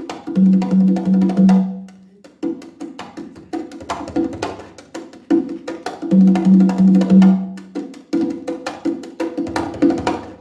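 Hand-played LP congas in a fast solo: dense rolls of slaps and open tones across the drums. Twice, about half a second in and again about six seconds in, comes a run of four ringing low open tones, and there is a brief pause near two seconds.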